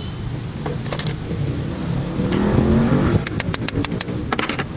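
Steady low rumble of a running vehicle engine that rises briefly in pitch midway, with a quick run of sharp metallic clicks near the end.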